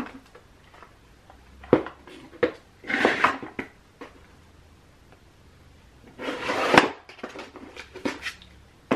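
Makeup items being rummaged through in a vanity drawer: plastic cases and compacts knocking and clacking together in a few separate knocks and short clatters, with a longer scraping stretch about six seconds in.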